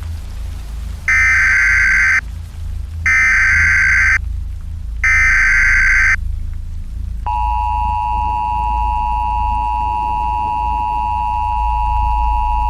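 Emergency Alert System broadcast tones: three one-second bursts of the warbling digital header that encodes the alert, a second apart. About seven seconds in, the steady two-tone attention signal starts and holds, all over a low steady rumble.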